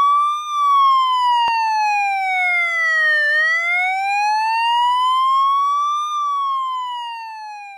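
Electronic police siren wailing slowly, a clean tone that slides down, climbs back up, then falls again as it fades out near the end.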